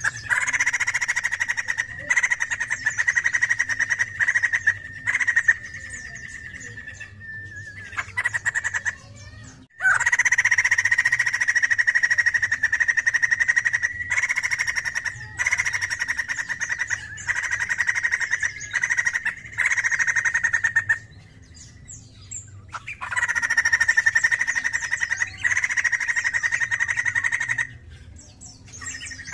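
White-crested laughingthrush singing in long, fast trilled phrases. It sings three long bouts, broken by short pauses about eight and twenty-one seconds in.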